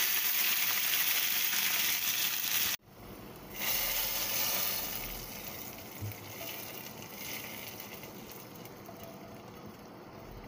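Hot ghee tempering with cumin, whole red chillies and curry leaves sizzling steadily in a pan, cut off abruptly. A fresh burst of sizzling follows as the hot tempering is poured into the cooked masoor dal, fading over the next few seconds.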